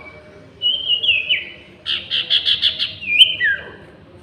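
Sirtu songbirds singing back and forth: short clear whistled notes that slide downward, with a quick run of about six rougher notes about two seconds in, then more downward-sliding whistles.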